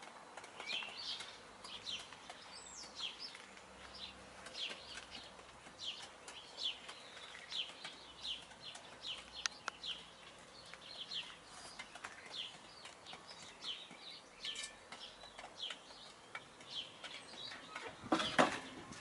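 Birds chirping: short, high calls, one or two a second, with a louder rustle near the end.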